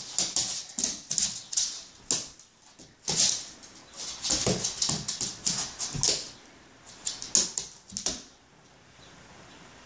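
A dog scrambling after a laser dot on a hardwood floor: flurries of claws scrabbling, skidding and clicking on the wood as it pounces, with short lulls between rushes. It settles down in the last second or so.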